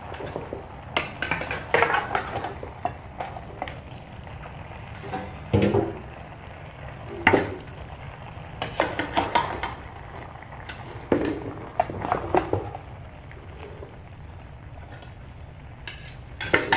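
Metal spatula and perforated skimmer scraping and clinking against a wok as cooked stir-fry is scooped out into an aluminium pot, in irregular strokes every second or so over a steady low hum.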